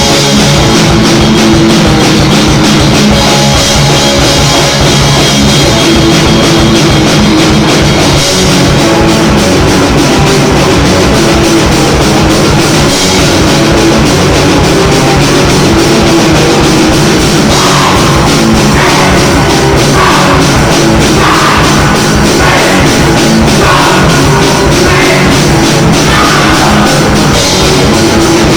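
Rock band playing loudly in rehearsal, drum kit driving under heavy, dense instruments.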